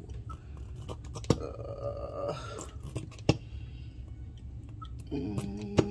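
A nearly empty plastic squeeze bottle of Dijon mustard squeezed and shaken upside down, sputtering air twice in short gurgling bursts, with three sharp knocks. The sputtering comes from the bottle running out of mustard.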